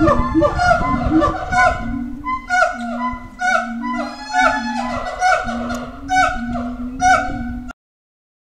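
Gibbons singing: several voices give loud, rising hooting calls in a rhythmic series, about two a second, which cut off abruptly near the end.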